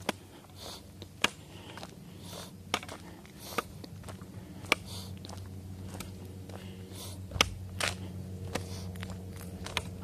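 Footsteps of a hiker walking along a path: sharp, crunchy steps about a second apart over a steady low hum.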